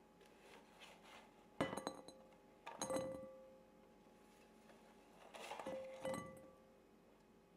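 Roasted butternut squash pieces being moved into a mixing bowl, the bowl clinking and ringing briefly where dish or utensil knocks against it. Two sharp clinks come about a second and a half and three seconds in, then a softer run of clinks near six seconds.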